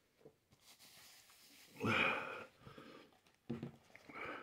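A man breathing hard while his mouth burns from ghost pepper heat: one loud breath about two seconds in, and another starting near the end.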